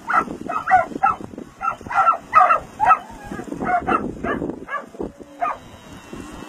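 Herding dogs barking, a dozen or so short barks in quick runs, the last about five and a half seconds in.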